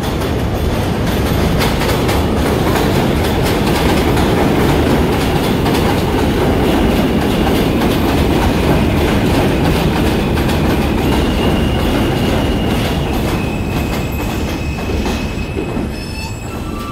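New York City subway train running past, its wheels clacking over rail joints. A thin, high wheel squeal comes in during the second half.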